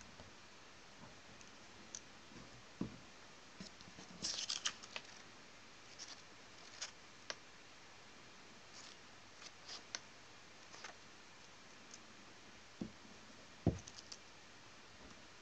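Quiet, scattered scratches and clicks of a hand and pen working at a drawing board, with a short run of scratching about four seconds in and two dull knocks near the end.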